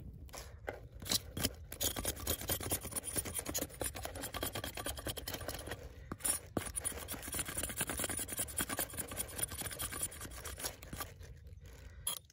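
Wood Steel Knives Snake Eater knife blade scraping rapidly and repeatedly across a prickly pear cactus pad, knocking off the spines, with a short pause about halfway.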